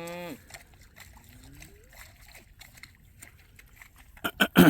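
A Shorthorn cow's moo trailing off right at the start, then light splashing, with a few loud splashes near the end, typical of cattle hooves in a waterlogged pasture.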